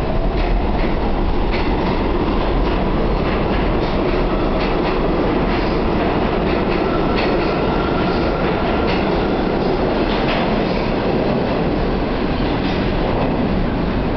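New York City subway train moving along the station platform, its wheels clicking irregularly over the rail joints under a steady rumble. A faint thin wheel squeal comes in about seven seconds in and lasts a couple of seconds.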